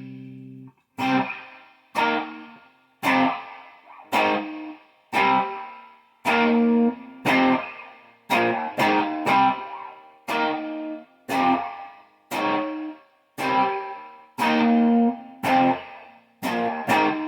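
Electric guitar through an amp, single chords struck about once a second, each left to ring and die away, some cut short.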